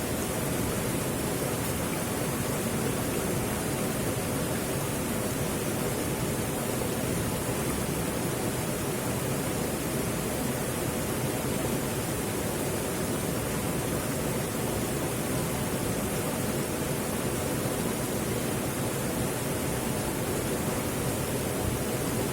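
Steady, even rushing noise that holds at one level throughout.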